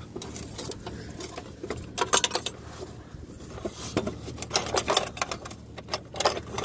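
Ford 9N tractor's four-cylinder flathead engine idling with a steady rhythmic clatter, with a few louder knocks about two seconds in and again near the end.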